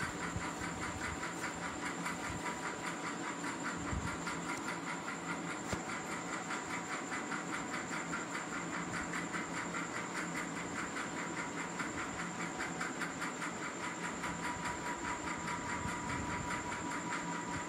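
A steady background hiss and hum carrying a few faint steady tones and a fine, fast, even flutter.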